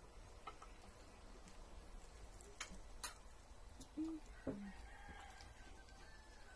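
A rooster crowing faintly, one drawn-out call about five seconds in lasting a second and a half, over light clinks of spoons and forks on plates. Two short low sounds come just before the crow.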